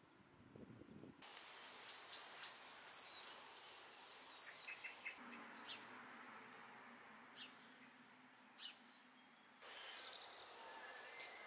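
Faint outdoor garden ambience of small birds chirping, scattered short chirps and a few quick falling calls, over a soft steady hiss. The background changes abruptly about a second in, around five seconds and near ten seconds, where separate recordings are joined.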